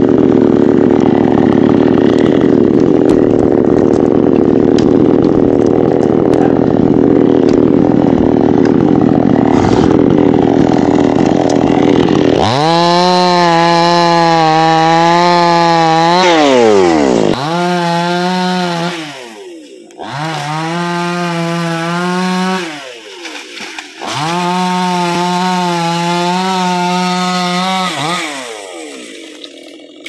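Petrol chainsaw working into a dry teak trunk. It makes a dense, rough running sound for about the first twelve seconds, then changes to a clear high whine that comes in four bursts, each revving up and then dropping away.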